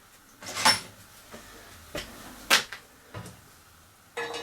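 A handful of separate knocks and clinks of steel hardware being handled during assembly of a hydraulic press frame: bolts, washers and bars knocking against each other at irregular intervals.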